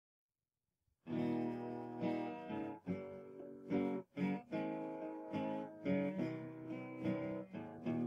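Guitar music starting about a second in, with chords strummed roughly once a second.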